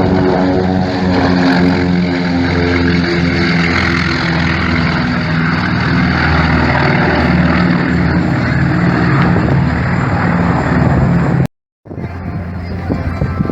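AV-8B Harrier jump jet's Pegasus turbofan running loud and steady while the jet hovers and turns in place: a jet roar over a steady hum of several tones. It cuts out abruptly about two seconds before the end, giving way to quieter, gusty wind noise.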